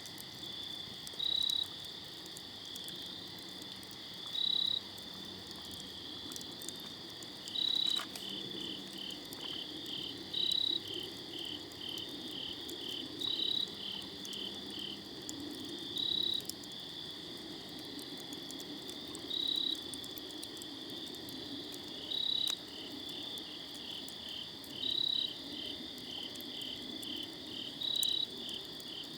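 Night chorus of insects and frogs. A short, high call about half a second long repeats every three seconds or so as the loudest sound, over a fast pulsing chirp and a steady high trill. A campfire adds faint scattered crackles.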